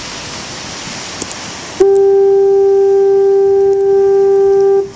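Foghorn sounding one long, steady, low note that starts about two seconds in and cuts off near the end.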